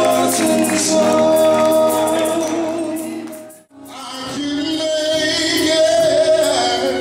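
Male gospel group singing long held notes over a live band with bass guitar. The music fades out about halfway through and fades back in, an edit between performance clips.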